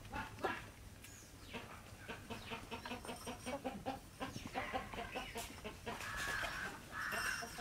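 Hens clucking softly while pecking feed from a shallow pan, with many quick taps from their beaks. A few longer, drawn-out clucks come in the second half.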